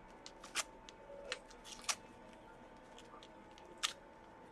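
Packaging being unwrapped by hand: a few sharp crinkles and crackles, the loudest near the end.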